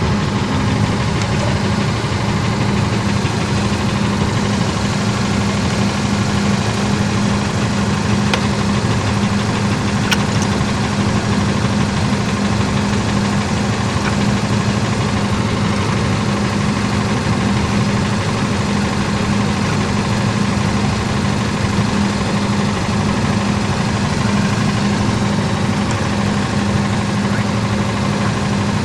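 An engine running at a steady idle, with an even, unchanging hum.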